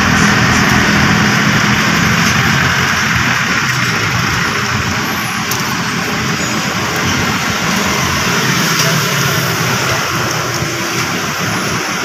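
A motor vehicle's engine running steadily nearby, a low hum under a dense wash of road and engine noise that eases slightly toward the end.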